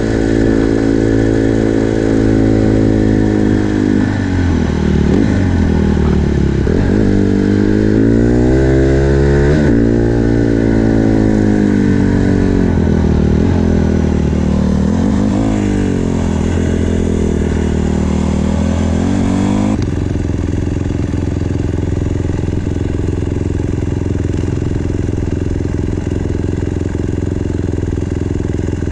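Small four-stroke dirt bike engine revving up and down as the bike is ridden, its pitch climbing and dropping repeatedly through the gears. About two-thirds of the way in the engine note gives way to a steady rushing noise.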